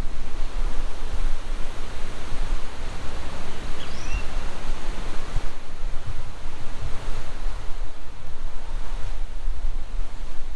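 Steady rushing wind and road noise over a fluctuating low rumble, as picked up on the camera's microphone in a moving vehicle, with a brief faint chirp about four seconds in.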